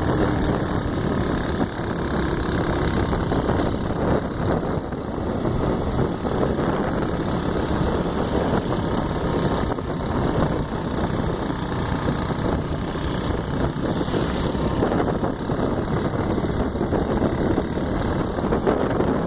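A vehicle's engine running steadily under a continuous rushing noise, with no break or change in level.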